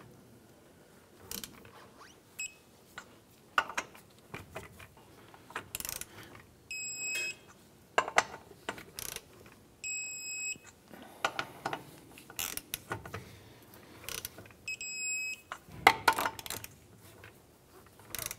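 Lug nuts being torqued with a ratcheting torque wrench: scattered ratchet clicks and knocks as the handle is worked, and three short electronic beeps spaced several seconds apart, the wrench signalling each time that the set torque of 95 ft-lb is reached.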